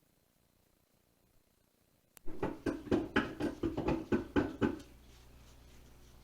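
Near silence, then a sharp click about two seconds in, followed by a quick run of about ten knocks, roughly four a second, and then a steady low hum.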